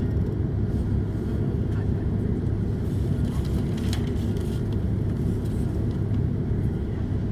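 Steady low rumble inside the cabin of an Airbus A330-300 taxiing, from its Rolls-Royce Trent 700 engines and the wheels rolling over the taxiway. A brief click about four seconds in.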